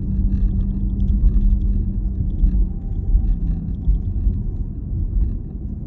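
Road and tyre rumble heard inside the cabin of a moving Porsche Taycan GTS electric car, with a steady low hum that drops slightly in pitch a little past halfway.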